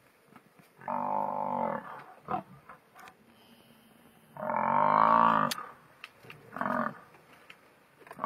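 Cape buffalo bellowing: a drawn-out call of about a second, a louder one of similar length midway, then a short one, with a few faint clicks between.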